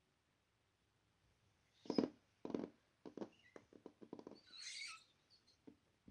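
Slime being squished and poked by hand: two soft squelches, then a quick run of small sticky clicks and pops, and a short crackling hiss near the end, all quiet.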